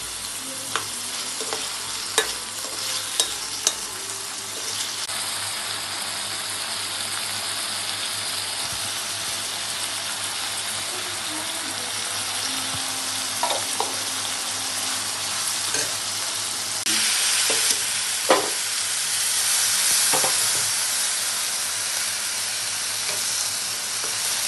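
Sliced onions and tomatoes sizzling in hot oil in a pan, with a steady frying hiss. A metal utensil stirs them, scraping and giving a few sharp taps against the pan. The hiss grows brighter about two-thirds of the way in.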